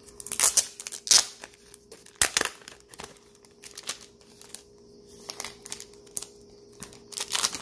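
Clear plastic sleeve crinkling in irregular bursts as it is handled and peeled open to slide out a stack of photo cards, loudest about a second in and again near the end. There is one sharp click about two seconds in.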